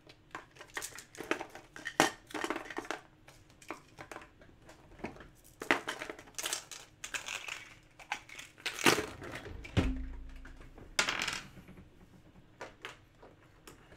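Irregular crinkling, rustling and clicks of objects being handled on a desk, with a heavier knock about ten seconds in.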